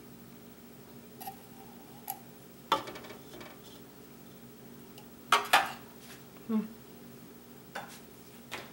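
Kitchen clatter as a silicone spatula scrapes a tin can of sweetened condensed milk and the can and utensils knock against the pot and counter: a handful of separate sharp clinks and knocks, the loudest a quick double knock about five seconds in, with a short falling squeak just after.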